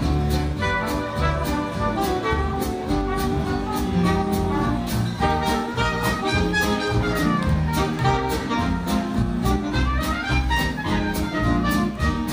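Dance orchestra playing an instrumental passage of a 1930s-style jazz number, led by brass, with a steady beat and quick runs of notes up and down.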